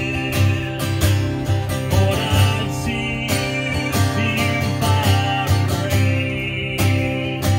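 Acoustic guitar strummed in a steady rhythm, amplified through a PA speaker, with a man's voice singing in places.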